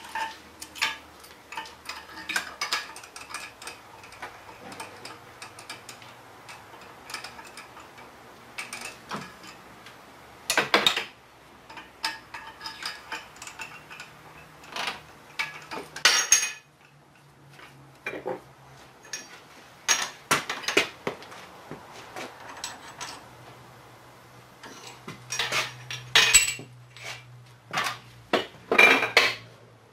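Metal tooling and clamps on a drill press clinking and knocking in irregular sharp strikes as the setup under the table is worked by hand. A low machine hum comes in about halfway through and again for most of the last third.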